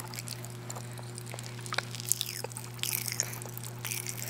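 Pop Rocks candy crackling in a mouth: scattered sharp little pops and clicks, thickest in the middle, over a steady low hum.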